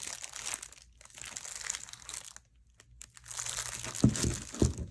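Plastic wrapping crinkling as it is handled on a tool case, pausing briefly midway, with a few knocks near the end.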